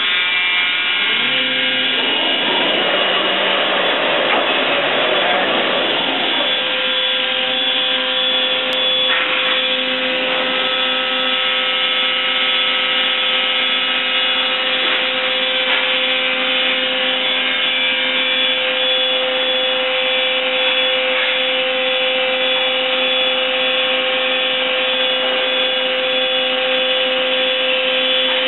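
Thermwood CS45 CNC router with an 11 HP HSD spindle running: a steady machine whine whose pitch settles about a second in. A rougher, noisier stretch runs from about two to seven seconds in.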